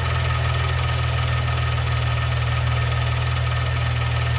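Maserati Ghibli SQ4's twin-turbo V6 idling steadily, heard up close in the open engine bay, with the ticking of its direct-injection high-pressure fuel pump. A certified Maserati technician has called that ticking perfectly normal.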